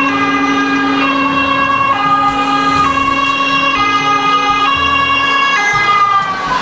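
Swedish ambulance's two-tone siren, alternating between a high and a low note each held just under a second, with a steady low tone underneath.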